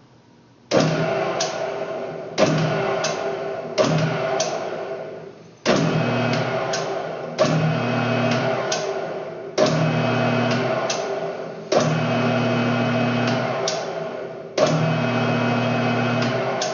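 Metal lathe spindle jogged at its lowest speed in short runs of one to three seconds, about eight times, each starting sharply with a click and running with a steady motor-and-gear hum. A 5/8-24 tap held from the tailstock is cutting threads into the turning 12L14 steel muzzle brake.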